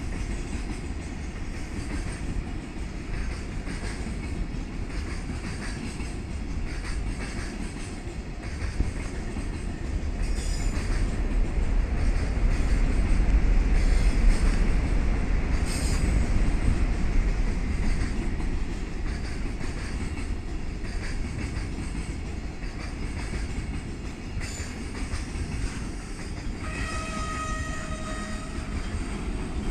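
A train running past on the rails, a steady rumble of wheels and cars that builds to its loudest about halfway through. Near the end a steady pitched tone sounds for about three seconds.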